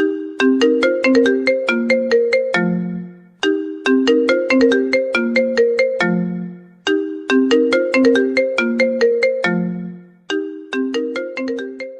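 Mobile phone ringtone melody: a short tune of quick, decaying notes that ends on a held low note, repeating about every three and a half seconds.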